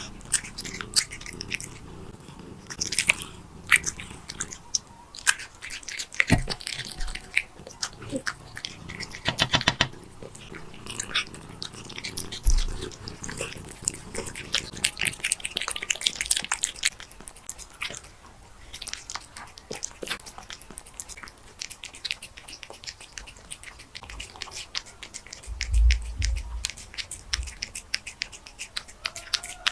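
A cat chewing and biting food close to the microphone: a dense, irregular run of clicks and crunches, with a few low thumps near the end.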